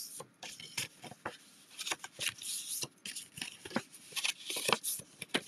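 A 6x6 sheet of patterned designer paper being folded along its score lines: an irregular run of short, crisp crinkles and rustles.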